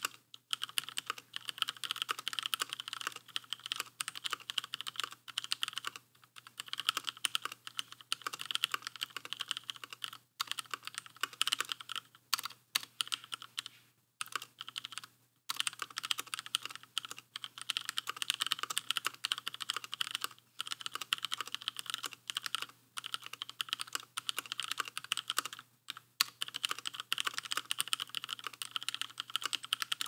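Typing on a DIY 96-key mechanical keyboard with Kailh Pro Burgundy linear switches and PBT keycaps: a fast clatter of keystrokes in runs, broken by short pauses. The stabilised keys sound poor, which the builder blames on the stabilisers.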